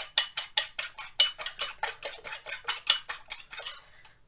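Eggs being beaten in a bowl: a utensil clicking against the bowl in a quick even rhythm, about five strokes a second, dying away about three and a half seconds in.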